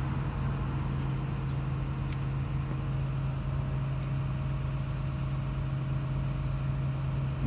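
An engine running at a steady idle: a low, even hum that does not change, with a few faint clicks.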